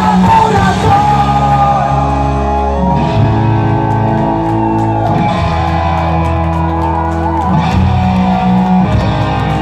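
Live rock band playing loudly in a large hall: distorted electric guitars holding chords over electric bass and drums, with a voice singing at times.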